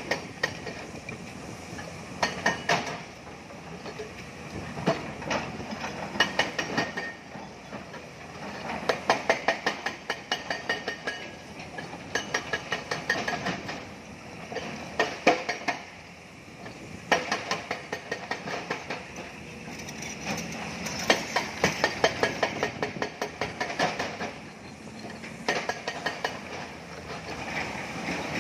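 Hydraulic crawler excavators working in a stone quarry: bursts of rapid metallic clanking and rattling that come every few seconds.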